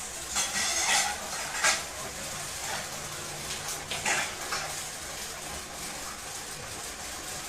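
A few short scrapes and clatters as the television is handled: a rattle about half a second in, a sharp knock just before two seconds, and another scrape about four seconds in, over a faint steady low hum.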